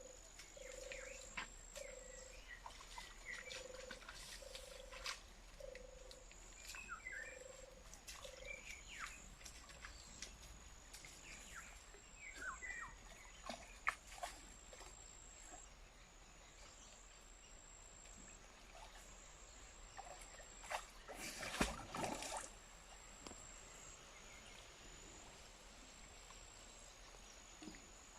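Faint outdoor wildlife by a lake. A low call repeats about once a second for the first eight seconds. High thin notes alternate between two pitches throughout, with scattered short bird chirps over them. A brief rushing noise comes near the 22-second mark.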